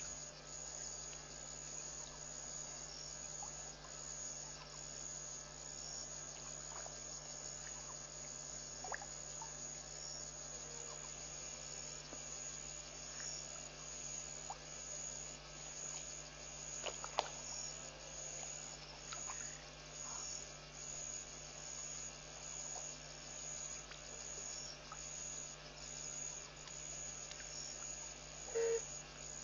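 Night insect chorus, a steady high chirring with evenly repeating pulses, over a steady low hum. There are a few brief clicks, the sharpest about halfway through, and a short lower call near the end.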